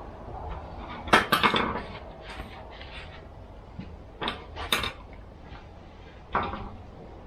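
Small metal parts and hand tools clinking and clattering on a workbench during chainsaw reassembly: a cluster of clatters about a second in, two more just past the middle, and a single one near the end.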